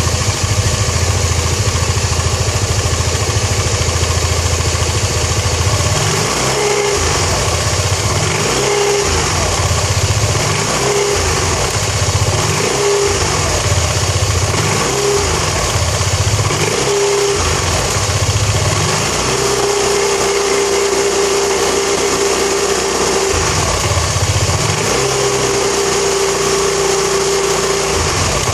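Kymco Nikita 300 scooter idling, then revved in about six short blips and two longer held revs, a steady tone coming in with each rev. This is the transmission noise the owner cannot trace despite taking the CVT apart and reassembling it several times.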